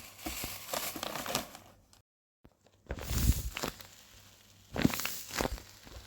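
Packaging being handled while an order is wrapped, crinkling and rustling in several short bursts, with a brief cut to silence about two seconds in.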